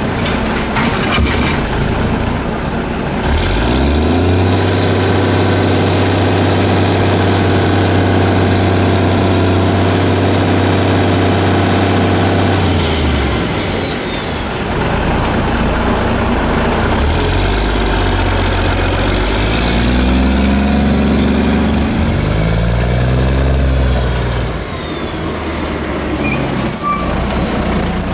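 Garbage truck's diesel engine revving up and holding high, steady revs for several seconds to power the hydraulic side-loader arm, then dropping back. Later it rises and falls again in a few sweeps as the arm cycles a cart.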